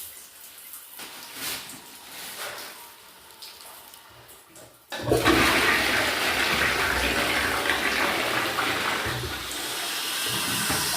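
A toilet flushing: a loud rush of water starts suddenly about five seconds in, after a few faint knocks.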